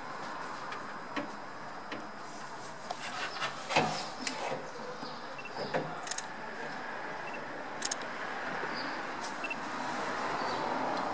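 Scattered knocks and clatter as a car radiator with plastic tanks is gripped and moved by gloved hands, the loudest knock nearly four seconds in, over steady workshop background noise.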